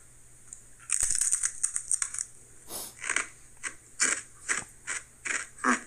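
A Sun Chips Original multigrain chip being bitten and chewed. There is a crisp crunch about a second in, then a run of irregular crunches, roughly two a second, as it is chewed.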